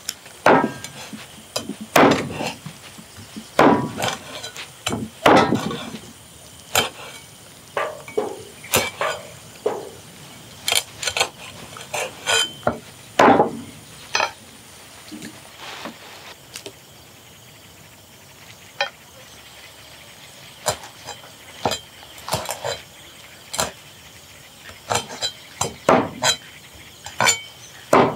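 A heavy cleaver chopping common butterfly lizards on a chopping block: sharp, irregular chops, some in quick pairs, with a pause of a few seconds about two-thirds of the way through.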